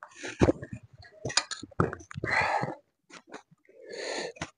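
Close-up mouth sounds of a person eating a steamed chicken taipo bun: wet chewing and lip smacks with sharp clicks, broken by three short breathy hisses.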